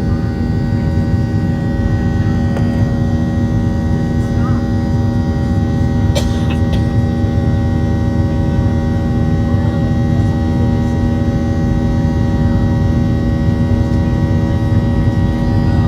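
Steady drone of a Boeing 737-700's CFM56 jet engines and airflow heard inside the passenger cabin, a constant hum with several held tones. A brief click about six seconds in.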